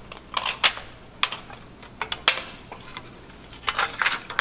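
Scissors snipping through thin aluminum soda-can sheet: a series of short, sharp crisp snips at an uneven pace, some coming in quick clusters.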